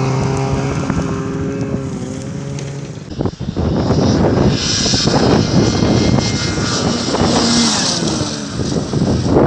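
Snowmobile engine running steadily close by, then, after a sudden break about three seconds in, a snowmobile riding across the snow and passing close, its engine louder and rougher with a strong hiss.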